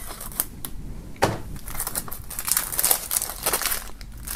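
Plastic shrink-wrap being slit with a knife along the edge of a CD jewel case and peeled off, crinkling and crackling. Scattered sharp clicks, one stronger about a second in, give way to denser crinkling from about halfway.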